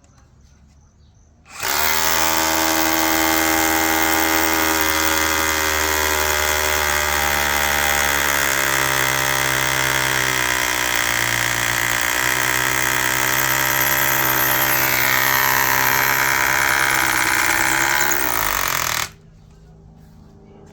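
Makita 12V cordless rotary hammer with an 8 mm SDS-plus bit hammer-drilling into a concrete fence post. It starts about a second and a half in, runs steadily for about seventeen seconds, then stops suddenly.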